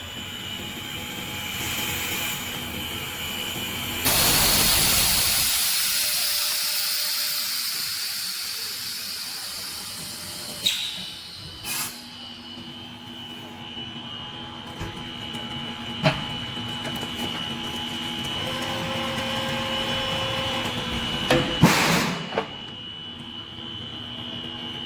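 Blow molding machine running with a steady hum and a high whine. About four seconds in a loud rush of compressed-air hiss starts suddenly and fades over several seconds. Sharp knocks and short air releases come near the middle and again near the end.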